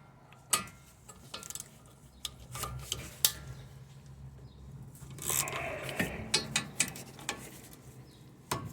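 Metal hand tools clinking, clicking and scraping against brake hardware as the rear brake caliper bracket bolts are worked loose, in irregular sharp knocks with a longer rasping scrape about five seconds in, over a faint steady low hum.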